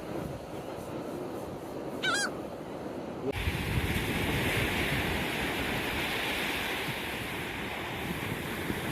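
Surf and wind on the microphone, with one short squawk from a gull about two seconds in. A little past three seconds the sound jumps abruptly to a louder, hissier wash of surf.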